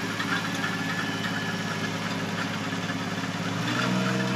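A vehicle engine running steadily at low speed. About three and a half seconds in, a different, stronger engine note takes over: a small John Deere utility tractor, fitted with a front loader and a post-hole digger, running at a steady speed.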